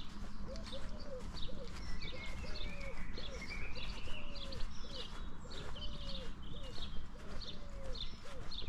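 Birds singing and chirping, with a low cooing call repeated about once a second.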